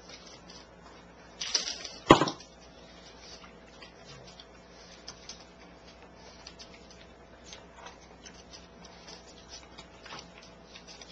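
Pug eating dry kibble from a slow-feeder bowl: a run of small clicks and crunches as the kibble is nosed around the bowl and chewed. A louder clatter ending in a sharp knock comes about two seconds in.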